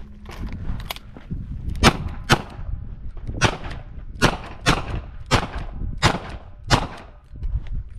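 Smith & Wesson 929 revolver firing .38 Short Colt rounds in a rapid string of about eight shots, mostly in quick pairs about half a second apart.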